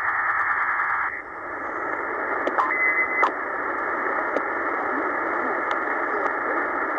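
Shortwave static hissing from a Tecsun PL-990x receiver's speaker in upper-sideband mode as it is tuned down through the 13 MHz band, sounding narrow and muffled. The hiss drops a little about a second in, a brief high tone sounds about three seconds in, and there are a few faint clicks.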